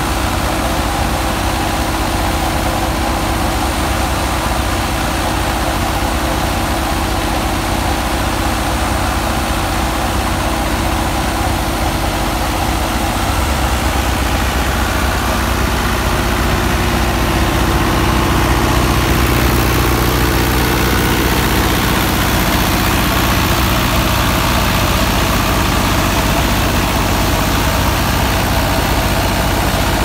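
Fiat 640 tractor's four-cylinder diesel engine running steadily under load, powering a wheat thresher through its PTO shaft, mixed with the whir of the thresher's spinning drum and pulleys. The sound gets a little louder about two-thirds of the way through.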